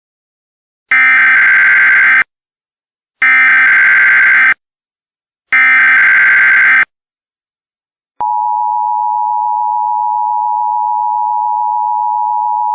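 Emergency Alert System header: three digital SAME-code squawks of about a second and a half each, a second apart, then the steady two-tone attention signal starting about eight seconds in. Together they signal that an emergency alert message is about to follow.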